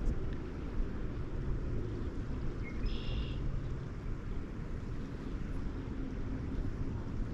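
Steady low outdoor rumble on the creek bank, with one short high chirp about three seconds in.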